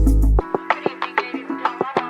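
Instrumental background music with a steady beat of plucked notes. The deep bass drops out about half a second in, leaving a lighter section of plucked notes.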